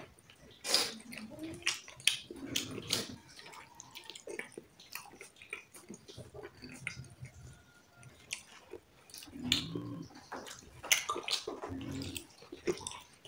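Irregular wet clicks and smacks of someone chewing food, with a few short low murmurs among them.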